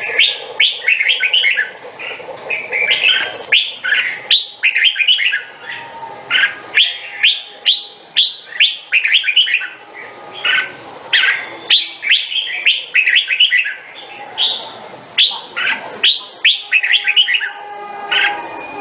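Red-whiskered bulbul singing: quick phrases of bright chirping notes, repeated over and over with short pauses between them.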